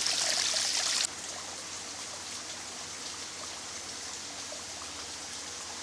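Water trickling and splashing over wet rocks in a small stream, a fairly loud hiss that cuts off suddenly about a second in, leaving only a faint steady hiss.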